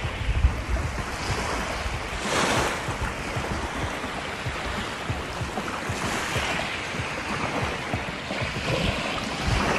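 Wind buffeting the phone's microphone over the steady wash of small waves lapping on a sandy beach, with a louder surge about two and a half seconds in.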